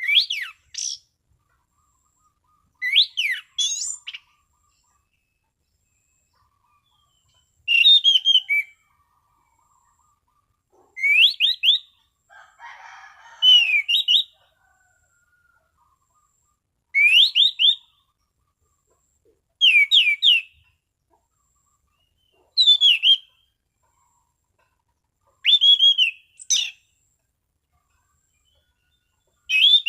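An Anis Cendana thrush singing in its clear, full 'ngeplong' style: short whistled phrases of quick rising and falling notes, one about every two to three seconds with quiet gaps between. A brief rougher, lower sound comes about twelve seconds in.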